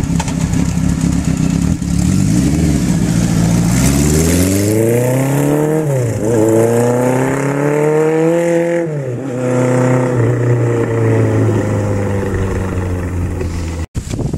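Kawasaki Z900's air-cooled inline-four engine through four separate exhaust pipes, pulling away and accelerating. The revs climb steadily, drop at a gear change about six seconds in, climb again and drop at a second change near nine seconds, then hold steady as the bike moves off.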